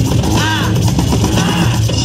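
Loud music with a steady beat and a repeating melodic figure, played for a breakdance battle.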